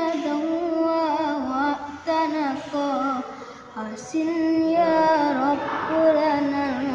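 A boy singing an Arabic sholawat solo and unaccompanied, in phrases with a wavering, ornamented melody and short breaks between them.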